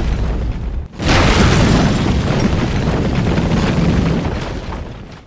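Explosion sound effects for a logo animation: a deep, rumbling boom cuts off about a second in and a second boom starts at once, rumbling on and fading away near the end.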